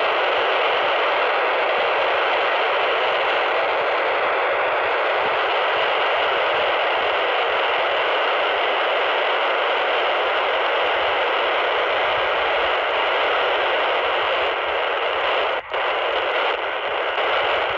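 Steady FM receiver hiss from a PNI Escort HP 82 handheld CB radio on receive with no station coming through, as it is stepped through the 27 MHz channels. A faint steady whistle runs under the hiss, and the hiss cuts out for a moment near the end.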